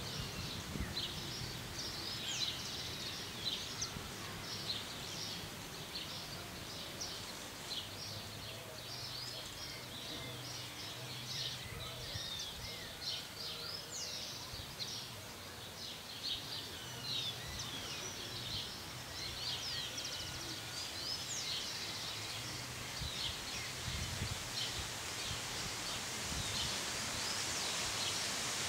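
Many small birds chirping continuously over a faint low drone from a distant EMD GT22 diesel locomotive approaching. Leaves rustle in the wind, growing louder near the end.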